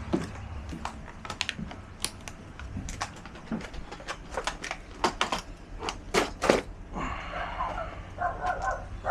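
A clatter of sharp clicks and knocks, then a dog barking repeatedly in short yaps from about seven seconds in.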